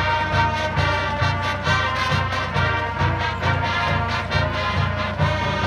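Marching band playing a brass tune over a steady low drum beat, about two beats a second.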